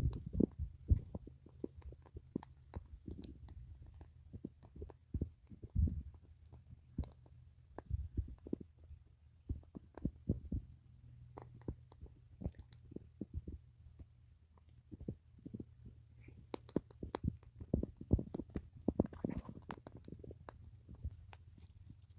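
Fire of dry stalks and fuel burning as green wheat ears roast for ponk, crackling and snapping in irregular sharp pops.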